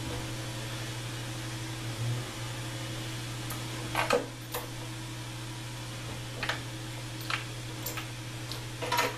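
Scattered clicks and clinks of small metal tool bits being rummaged through in a box, over a steady hum.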